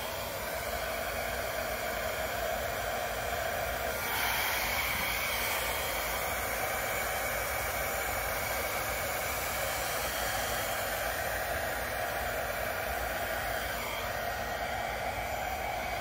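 Small travel hair dryer blowing steadily on its cool-shot setting, a continuous rush of air. It grows a little louder about four seconds in and eases slightly near the end as the nozzle is moved over the paint.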